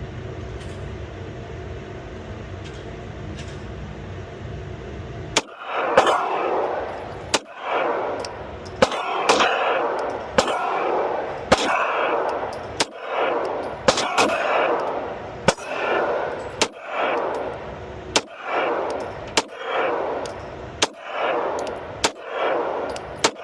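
A 9 mm Glock pistol fired in slow, steady single shots, a little over a second apart and about fifteen in all, each trailing off in a ringing echo. Before the first shot, about five seconds in, there is a steady ventilation hum.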